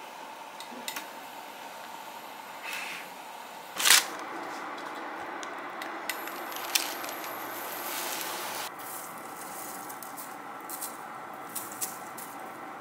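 Kitchen cooking sounds: a steady light sizzle from a croissant frying on parchment in a frying pan, with scattered clicks of metal tongs and utensils. A single loud knock comes about four seconds in.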